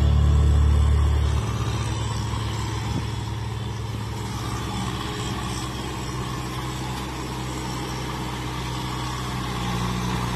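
Small four-wheel farm tractor's diesel engine running steadily with a low, even chug as it works through deep mud. Background music fades out in the first second or so.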